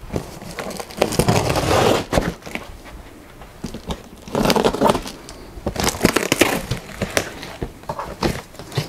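Packing tape being cut and torn off a large cardboard box and the stiff cardboard flaps being pulled open, crackling and rustling in several bursts about a second long, with scattered scrapes and taps between them.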